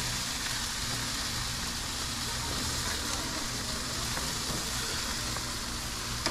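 Chicken leg quarters sizzling on the grate over direct charcoal heat, a steady hiss.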